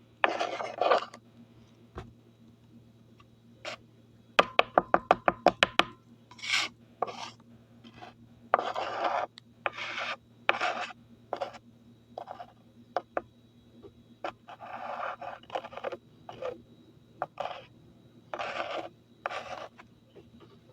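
Scraping and rubbing from hands working with kitchen things, in short noisy strokes at irregular intervals, with a quick run of about a dozen sharp clicks a little over four seconds in. A faint steady hum sits underneath.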